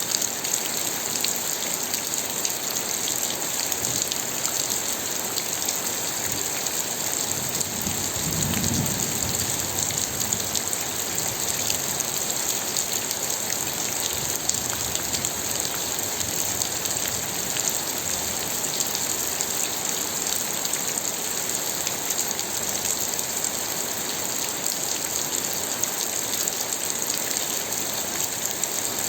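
Steady rain, an even hiss speckled with many separate drop hits. A brief low rumble comes about eight seconds in.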